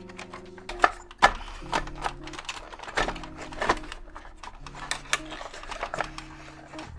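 Clicks and knocks of plastic radio parts being handled and pried as the circuit board assembly is worked loose, over soft background music with held synth chords.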